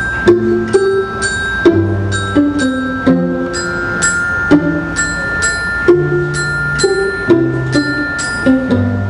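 Live small-ensemble music: bell-like mallet percussion notes struck about twice a second, ringing over held string notes, with a bowed cello line moving underneath.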